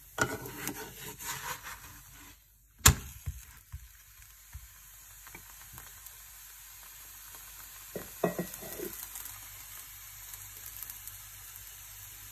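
Onion-and-green-chilli roti frying in an oiled nonstick pan: a steady faint sizzle with crackles, broken by a few sharp knocks, the loudest about three seconds in and a cluster around eight seconds in.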